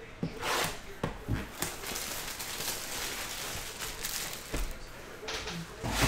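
Plastic shrink wrap crinkling and tearing as hands peel it off a sealed cardboard box of trading cards, with a few light knocks from the box being handled.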